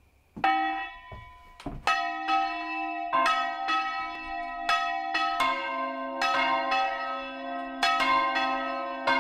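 Church bells swung full circle by hand, their clappers striking in quick, overlapping strokes at more than one pitch, each stroke ringing on into the next. The first stroke comes about half a second in and the ringing turns continuous after about two seconds.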